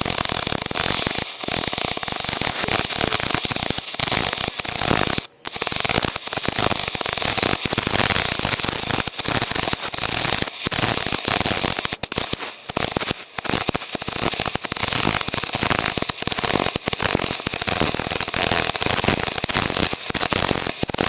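MIG 250E welder's arc running aluminium wire on aluminium, a steady dense crackle and hiss as a bead is laid, broken off once briefly about five seconds in and stopping at the end.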